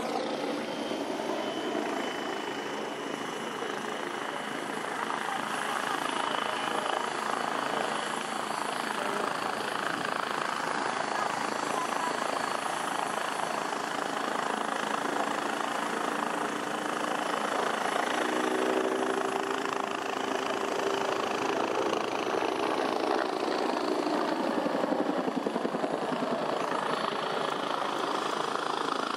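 Bell AH-1F Cobra helicopter flying a display overhead: its two-bladed main rotor chops rapidly and steadily, with a thin high turbine whine over it, the sound growing a little louder in the first few seconds.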